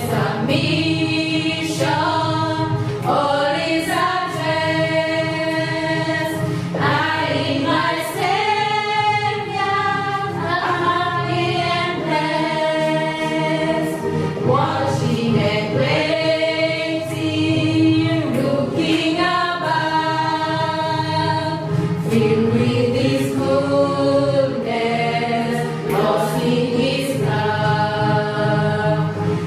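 A group of voices singing a hymn together in long held notes.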